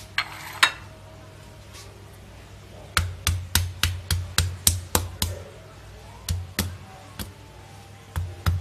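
Stone pestle pounding fresh turmeric and ginger in a stone mortar (ulekan and cobek), grinding them into a spice paste. Two light knocks come at the start. About three seconds in, a run of even thuds begins at about three strokes a second, then a few single strokes, and another run starts near the end.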